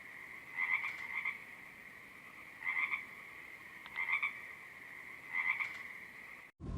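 Frogs croaking in short bouts, about four in all, over a steady high-pitched chorus. The sound cuts off abruptly near the end, and a louder, deeper rush of noise begins.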